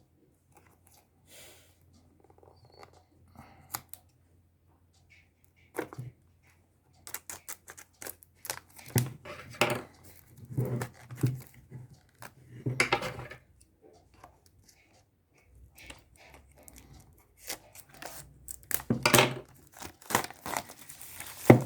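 Packaging of a pair of wireless earbuds being handled and torn open: scattered rustling, tearing and small clicks, quiet at first and then in several louder bursts.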